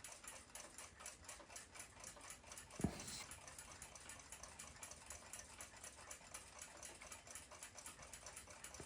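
Faint, rapid ticking of a 1926 Chelsea ship's bell clock movement's lever escapement running, about five even ticks a second, freshly cleaned and oiled. One louder click comes about three seconds in.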